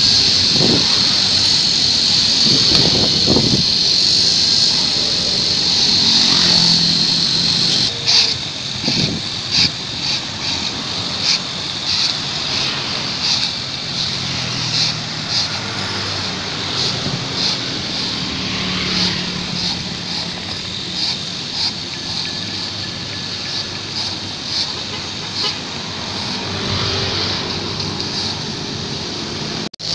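Fan rake strokes scraping grass clippings across pavement, a little more than one stroke a second, from about eight seconds on, over the steady sound of passing road traffic with a horn toot. Before that a steady high-pitched whine dominates.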